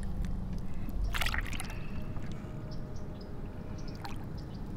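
Soft water splashing and sloshing as a released bass is let go at the surface and swims off, with a couple of brief, sharper splashes.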